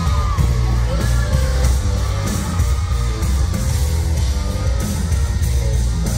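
Live pop concert music from a band with bass guitar and drums: a heavy, steady bass line under a beat, with some singing.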